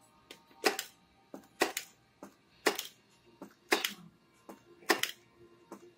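Hopping model lowrider car with working hydraulics clacking against a wooden tabletop. About once a second a light tick is followed by a sharper clack.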